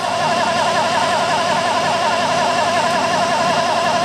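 Milling machine running at full spindle speed while a small 1/8-inch cutter cuts a keyway slot in aluminium: a steady whirr with a wavering whine.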